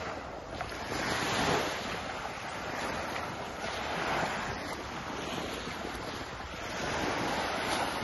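Small waves breaking and washing up on a sandy shore, swelling and easing three times.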